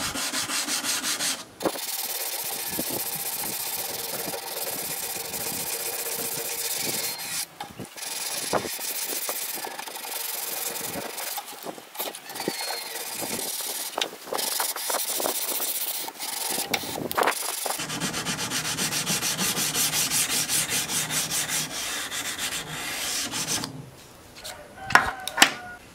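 Hand sanding of a freshly heat-treated Sleipner steel knife blade with abrasive paper on a block, lubricated with WD-40, to clean off the heat-treat scale: fast back-and-forth rasping strokes with a few short breaks. The sanding stops about two seconds before the end, followed by a few sharp clicks.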